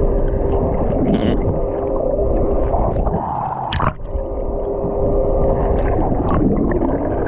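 Steady mechanical hum over heavy wind and water noise on a boat, with a sharp click just before four seconds in, where the hum breaks off briefly.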